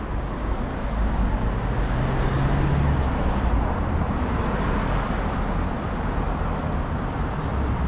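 Street traffic: a motor vehicle passes, its engine hum swelling to its loudest about two to three seconds in and then easing, over the steady noise of the road.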